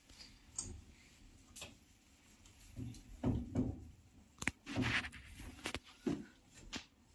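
A string of irregular knocks, clicks and short scrapes, as of objects being handled, with the busiest clatter about halfway through.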